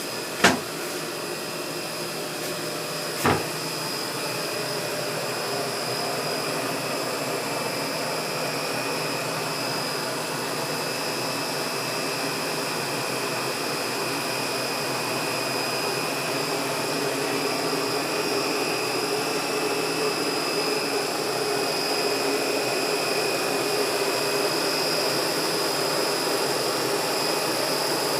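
Steady mechanical drone of a marine diesel generator running in a yacht's engine room, with steady high whines on top. Two sharp knocks sound in the first few seconds.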